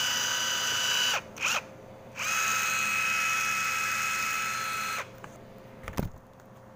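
Vanderbilt 21V cordless impact wrench running free with no socket or load: a steady high electric-motor whine with no hammering. It is released after about a second, blipped briefly, then run again for about three seconds at a slightly lower pitch. A short knock follows near the end.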